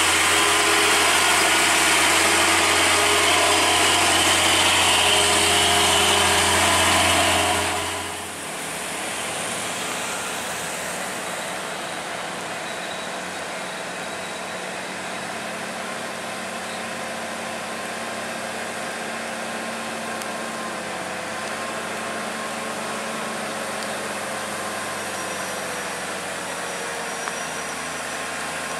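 Hino truck diesel engines. For the first eight seconds a green Hino FG-series truck runs loudly right alongside, engine and tyres together. After a sudden drop, a Hino container truck's engine labours steadily at low speed, working hard to climb a wet, slippery grade.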